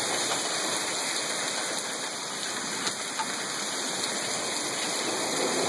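Hail and rain pelting down hard: a steady, dense rushing hiss, with a few sharper clicks near the middle.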